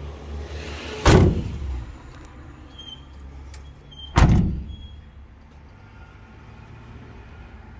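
The rear doors of a white Ford Transit van are slammed shut one after the other: two loud slams about three seconds apart, over a low steady hum.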